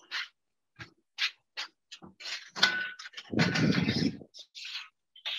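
Kitchen handling sounds: a string of short scrapes and clicks from utensils and a metal oven tray being moved, with one louder, longer rumbling scrape about three and a half seconds in.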